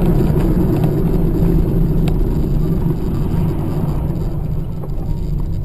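Steady drone of a car's engine and tyres on the road, heard from inside the cabin through a dashcam, with a faint click about two seconds in.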